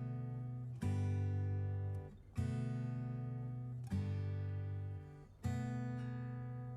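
Background music: acoustic guitar chords strummed, a new chord struck about every one and a half seconds and left to ring.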